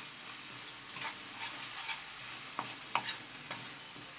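Wooden spatula stirring thick white pumpkin (ash gourd) halwa in a non-stick kadai: the freshly added ghee sizzles steadily, with a few sharp scrapes and taps of the spatula against the pan. The halwa is in its last stage of cooking.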